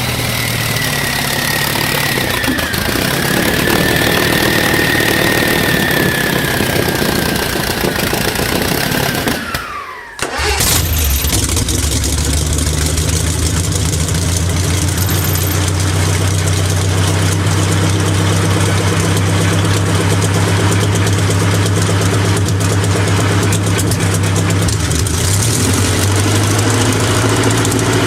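An engine running with a high whine that slowly falls in pitch. About ten seconds in the sound drops out briefly, then an engine starts and settles into a steady idle.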